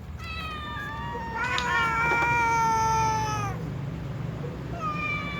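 Domestic cats meowing in long, drawn-out calls, two voices overlapping through the middle, then after a short pause another long meow starts near the end. The cats are meowing for food before feeding.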